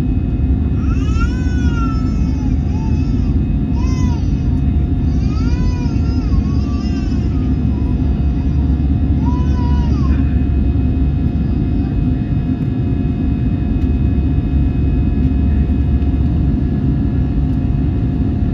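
Airbus A320-216's CFM56-5B engines at climb power, a steady deep cabin roar with faint steady whine tones. In the first half a high-pitched voice cries out several times, falling silent about ten seconds in.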